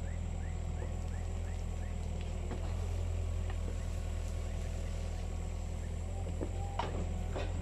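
Caterpillar 305.5E2 mini excavator's diesel engine running steadily, with a few knocks during the work, the sharpest near the end.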